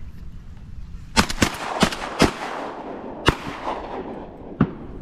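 Shotguns fired by three duck hunters at a passing flock of teal: a quick volley of about five sharp shots starting a little over a second in, each trailing off in an echo, then one weaker shot near the end.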